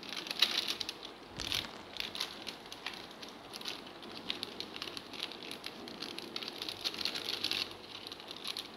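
Chicken pieces frying in oil in a steel pan, a steady sizzle with many fine crackles and pops.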